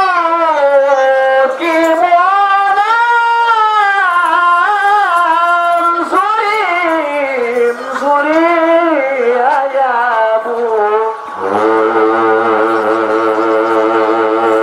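Qaswida singing: one voice singing an ornamented melody whose notes slide and bend, then holding a long steady note for the last few seconds.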